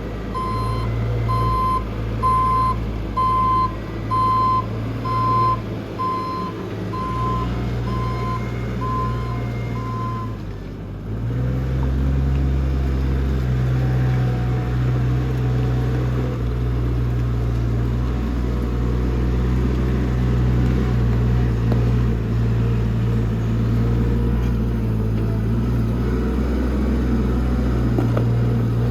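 Forklift backing up, its reversing alarm beeping evenly at a single pitch over the running engine; the beeping stops about ten seconds in, and the engine then runs louder and steady.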